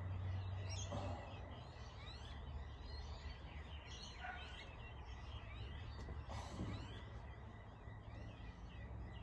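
Many small birds chirping and calling over steady outdoor background noise, with a low hum that stops about a second in.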